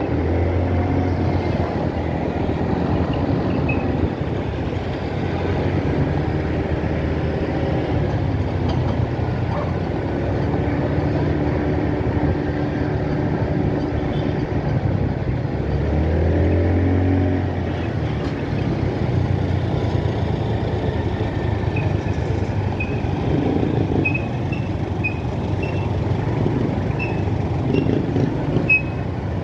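Motorcycle engine running while riding in slow traffic, its pitch rising and falling with the throttle, most clearly about halfway through, over steady road and traffic noise.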